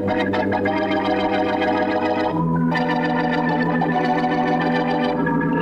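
Organ music bridge between scenes of an old-time radio drama: held organ chords that shift to a new chord a little under halfway through.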